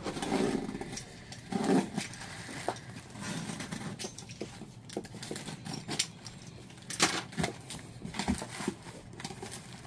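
Packaging rustling and crinkling with scattered clicks and light knocks as items are handled and unpacked, the sharpest knock about seven seconds in.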